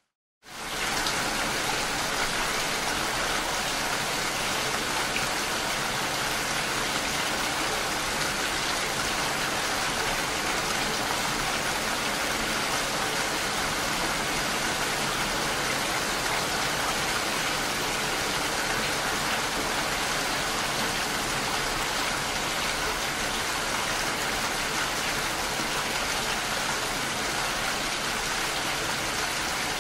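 Rain falling in a steady, even hiss that starts abruptly about half a second in, after a moment of silence.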